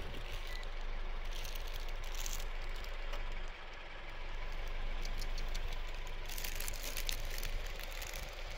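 Steady low rumble of an engine running, with one short high beep just after the start and two brief crackly, hissy stretches.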